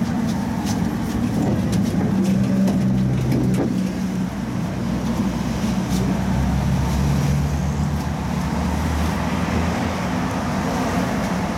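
Two-car Tatra T3 (MTTCh) tram running along the line, heard from on board: a steady low hum that swells and fades over track noise, with a few sharp clicks.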